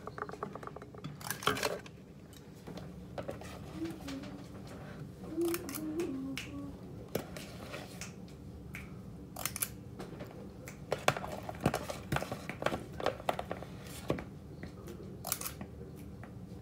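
Utensils scraping and clicking against a plastic mixing bowl as cookie dough is scooped out, in irregular clusters of sharp clicks and scrapes.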